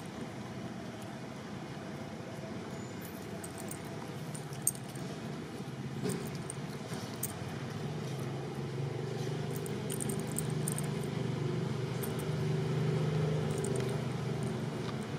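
Steady outdoor background noise with a low, engine-like hum that grows louder in the second half, plus a few faint clicks.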